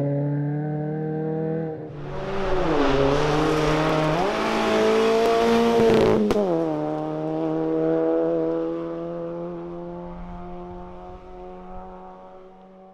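Rally car engines at speed. First comes a steady engine note. About two seconds in, a hatchback rally car accelerates hard close by, with loud tyre and road noise and a dip and rise in engine pitch like a gearshift. A sharp click comes about six seconds in, then the engine note drops as the car passes and fades away.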